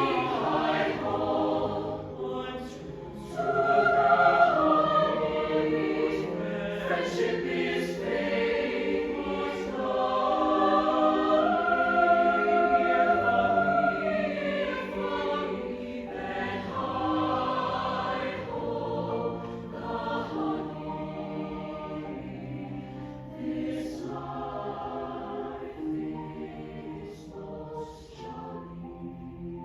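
Mixed high school choir singing in parts, sustained chords with crisp 's' consonants, growing gradually softer through the second half.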